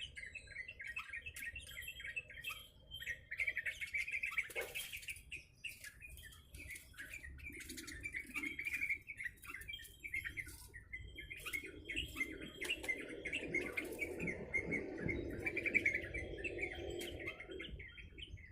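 A yellow-vented bulbul (trucuk) chirping and chattering almost without pause in quick, busy phrases. A low rumble sits underneath for a few seconds in the second half.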